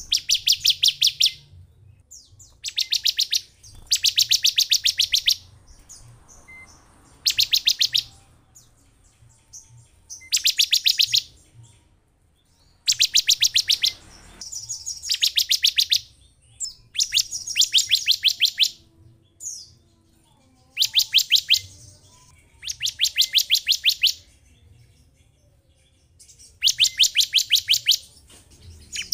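Bar-winged prinia (ciblek) giving rapid, buzzy trills, about a dozen quick notes a second. Each trill lasts about a second, repeated every two to three seconds.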